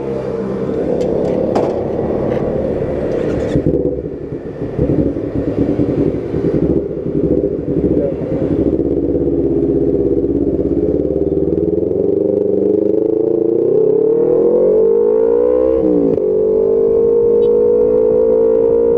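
Kawasaki Ninja 250 with an aftermarket exhaust running under way, heard through the action camera's own microphone. Its note is rough and uneven at first, then rises steadily about two-thirds of the way in, drops sharply at a gear change, and climbs again.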